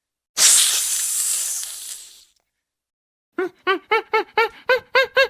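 An animal hissing: one long hiss that fades away over about two seconds. About three seconds in, a fast run of short squeaking calls starts, about four a second.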